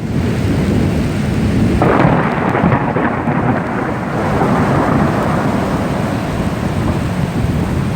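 Thunder rumbling over steady rain, swelling about two seconds in and rolling on for several seconds.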